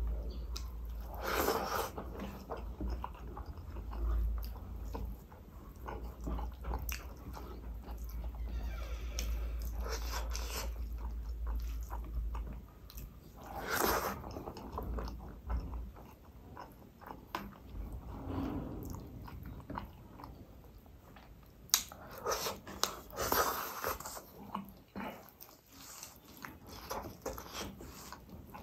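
Close-miked chewing and mouth sounds of a person eating rice by hand, with soft squishing as the fingers mix and scoop the rice, and one sharp click about three quarters of the way through.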